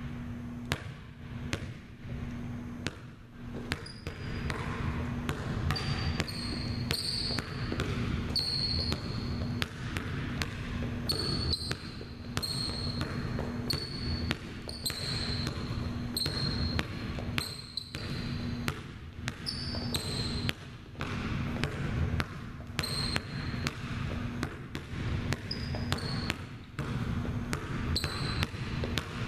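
A basketball being dribbled hard on a hardwood gym floor through quick stepback and crossover moves, the bounces coming at an uneven rhythm. Short high squeaks of sneakers on the wood come with the footwork.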